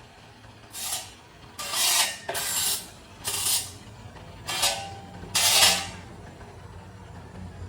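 Six short scraping strokes, each a third to half a second long, spaced a little under a second apart, over a faint low hum.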